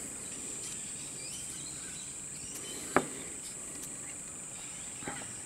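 Quiet handling while working body filler with wooden sticks: one sharp tap about three seconds in and a couple of faint clicks near the end, over a steady high-pitched hiss.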